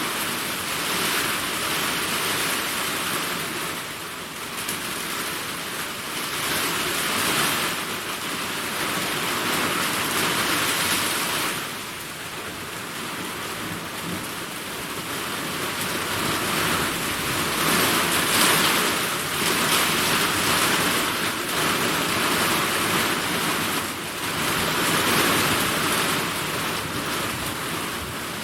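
Heavy summer rainstorm: a dense, steady hiss of rain that swells and eases every few seconds, as if in gusts.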